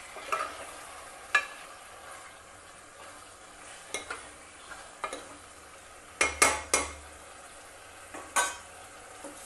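A utensil stirring chicken curry in a metal pan, scraping and knocking against the pan about once a second, with a quick run of louder scrapes about six seconds in. The frying masala sizzles steadily underneath.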